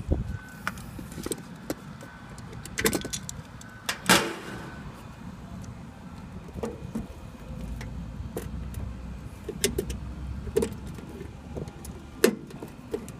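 Scattered clicks, knocks and rattles of wires and tools being handled inside a sheet-metal electrical control panel, the sharpest knock about four seconds in, over a steady low rumble.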